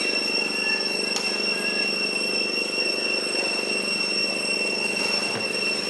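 Steady high-pitched whine, one unchanging tone with fainter overtones above it, over a continuous lower droning hum.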